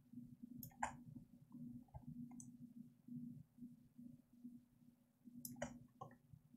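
Faint low room noise with a few short computer mouse clicks, the two loudest about a second in and near the end, as settings are adjusted in software.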